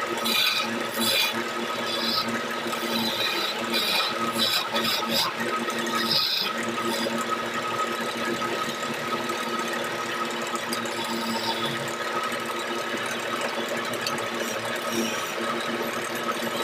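Wood lathe spinning a gamari-wood baluster blank, its motor giving a steady hum, while a hand chisel cuts into the turning wood in short scraping bursts during the first six seconds or so. After that the lathe's hum carries on steadily with lighter cutting.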